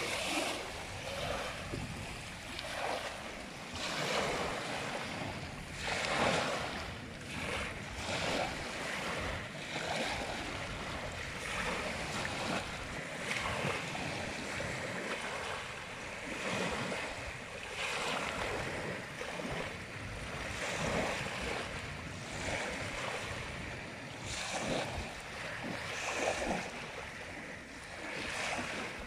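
Small sea waves breaking and washing up on a sandy shore, the wash swelling and fading about every two seconds.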